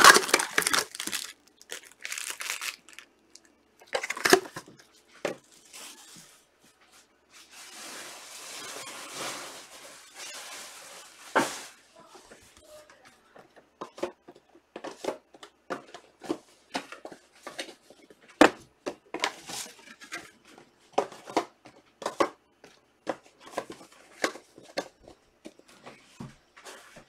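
Trading-card pack wrappers being torn open and crinkled, twice in the first half, followed by a long run of quick clicks and taps as the cards are handled.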